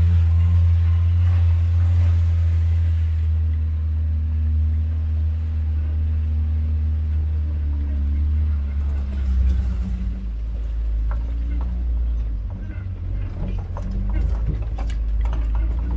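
Vehicle engine running while driving, a steady low hum whose note drops and turns uneven about nine seconds in, with scattered knocks and rattles in the second half.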